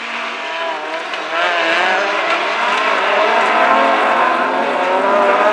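Racing cars' engines revving hard, several pitches wavering up and down as they rise and fall, getting louder about a second and a half in.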